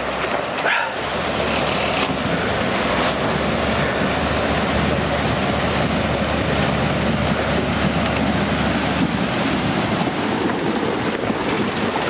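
Pickup truck fording a shallow rocky river: water rushing and splashing around it, over a low engine hum that fades near the end.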